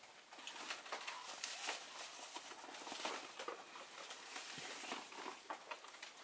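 Fishing rod, reel and fabric rod bag being handled: irregular light clicks and rustles.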